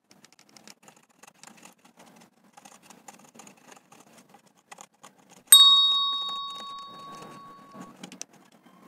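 Pencil scribbling over paper masking tape on a plastic curtain rail, faint scratching strokes throughout. About five and a half seconds in, a single loud bell-like ding rings out and fades away over about two and a half seconds.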